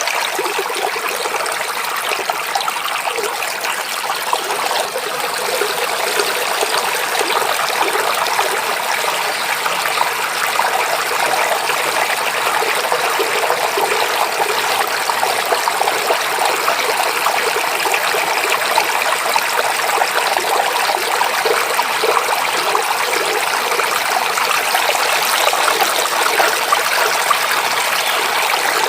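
Babbling stream: water running and trickling in a steady, even rush.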